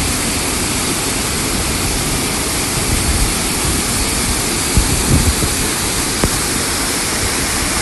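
Flash-flood water pouring down a rocky hillside as a wide muddy waterfall and rushing along the ground below: a loud, steady rush of water.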